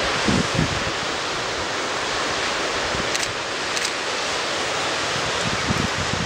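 Small waves breaking and washing up a sandy beach, a steady surf hiss, with brief low gusts of wind on the microphone near the start and again near the end.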